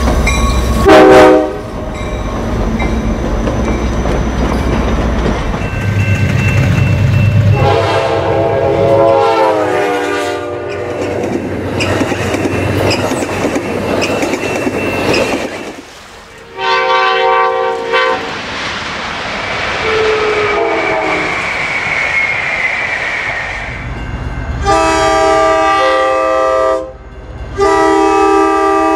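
Amtrak passenger trains passing close by: diesel locomotive engine rumble and wheels rolling and clacking over the rails. Several-note locomotive air horn chords sound repeatedly: a short blast about a second in, a long blast in the middle that drops in pitch as the train passes, and two long blasts near the end.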